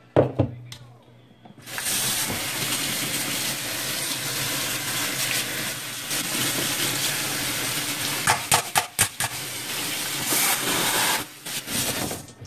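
Water running from a kitchen tap into the sink, turned on a couple of seconds in and shut off near the end. A sharp knock comes at the start and a quick run of knocks partway through.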